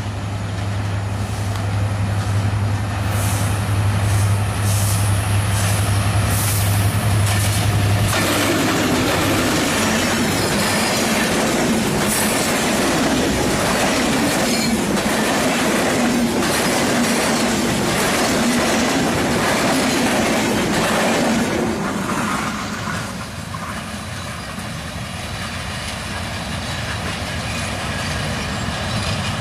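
Train running on the rails. A steady low hum gives way about eight seconds in to loud rattling clatter of the wheels and cars, which eases off a little after twenty seconds in.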